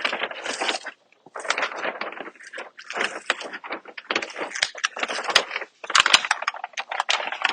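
Vinyl wall decal being worked by hand onto the wall: rapid crackling and scraping in irregular bursts, with a few brief pauses.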